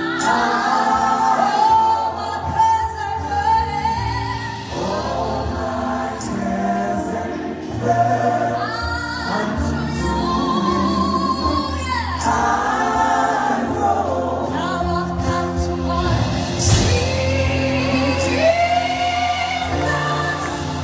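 Live gospel music: a woman sings lead into a microphone over a band, with a choir of backing voices.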